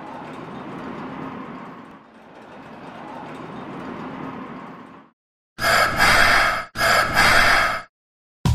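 Added title sound effects: a rushing, rumbling noise swells and fades twice, like a train running past. It is followed by two loud blaring calls about a second long each, back to back.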